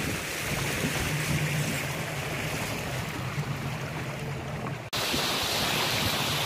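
A river longboat's outboard motor running steadily, with water rushing along the hull. About five seconds in, the sound cuts abruptly to a louder, brighter rush of fast shallow water, with the motor still running under it.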